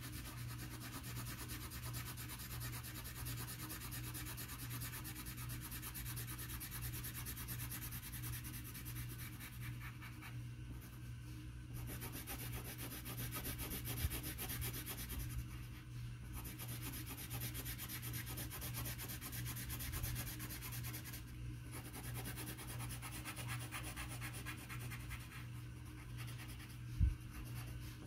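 Orange colored pencil shading on paper: a steady scratchy rubbing of quick back-and-forth strokes, with a low hum underneath.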